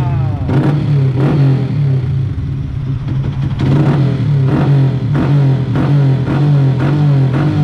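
Tuned motorcycle engine on a dyno, blipped up and down in quick revs about once or twice a second over a steady running hum.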